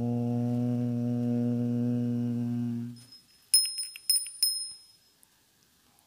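A deep voice holding a chanted "Om" on one steady note, which stops about halfway through. It is followed by a small bell struck about three times with a bright ringing tone.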